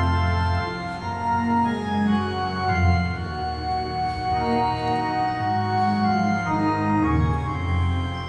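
Organ playing a slow hymn tune in held chords, with low bass notes that change every second or two; no singing.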